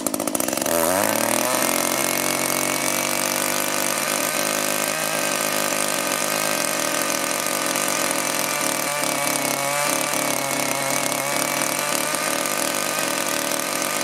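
Small two-stroke engine of an Echo string trimmer running at high revs, then dropping about a second in as the throttle is let off and settling into a steady idle.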